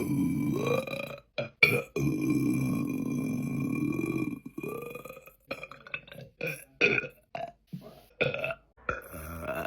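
A woman belching: two long drawn-out burps in the first half, then a run of short, quick burps.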